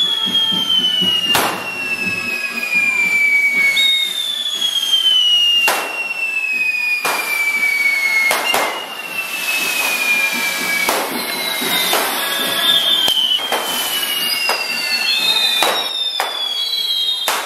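Hand-held firework fountains mounted on wooden sticks, hissing, with several overlapping whistles that each slide slowly down in pitch over three or four seconds, and about a dozen sharp bangs scattered through.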